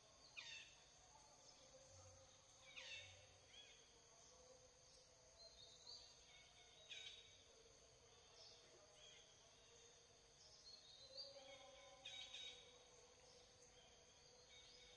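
Faint tropical forest ambience: a steady high insect drone, with a handful of short bird calls that fall in pitch, scattered through it.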